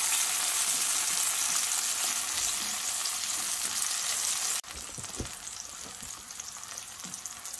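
Courgette slices sizzling steadily in hot oil in a cast-iron pan as they are turned with a fork to colour them lightly. The sizzle drops sharply in level a little past halfway and carries on quieter.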